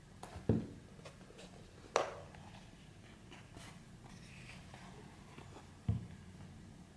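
Hands handling a black cardboard box and a soft eyeglasses case: a dull thump about half a second in, a sharp click about two seconds in, soft rustling, and another dull thump near the end.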